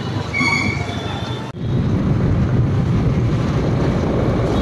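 Outdoor street noise: a dense low rumble of traffic with wind buffeting the phone's microphone. It cuts out for an instant about a second and a half in, then comes back louder.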